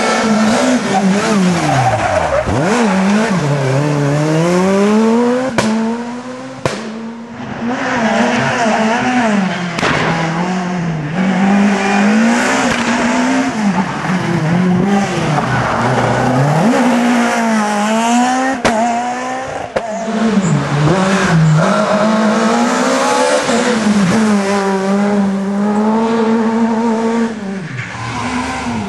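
S2000 rally cars, naturally aspirated two-litre four-cylinder engines, driven flat out: the engine note climbs through the revs again and again and drops back at each gear change or lift-off, with a few sharp cracks. Several cars go by in turn.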